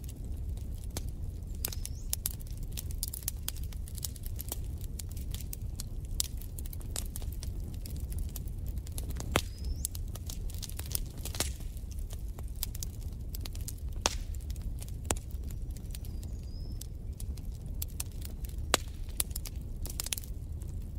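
Wood fire crackling in a fireplace: irregular sharp pops and snaps over a steady low rumble, with a few louder pops.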